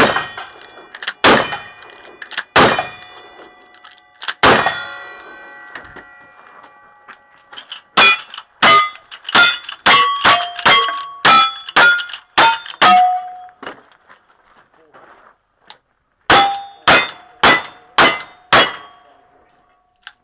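Cowboy action shooting string: four pump-shotgun shots, then about ten quick lever-action rifle shots and five single-action revolver shots, each hit making the steel plate targets clang and ring.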